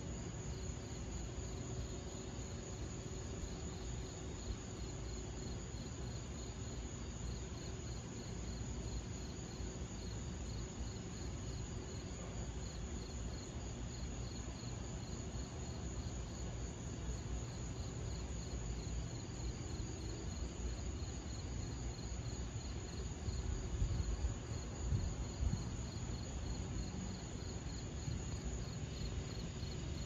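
Night insects such as crickets chirping steadily, an even, pulsing high-pitched trill, over a low outdoor rumble that turns gustier about three quarters of the way through.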